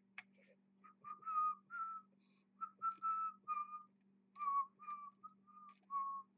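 A person whistling a short tune to himself: about a dozen brief notes that step up and down in pitch, starting about a second in and stopping near the end.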